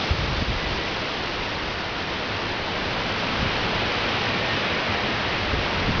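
Strong wind blowing steadily: a continuous hiss with low, gusty buffeting on the microphone.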